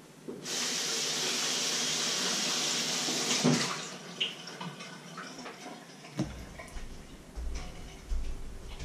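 Kitchen tap running in a strong stream for about three seconds, then shut off with a knock, followed by a few clinks and low thuds.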